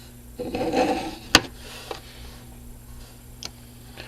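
Hands handling a small alarm device's wiring while disconnecting a wire from the light: a short rustle, then one sharp click about a second in, followed by a few fainter ticks.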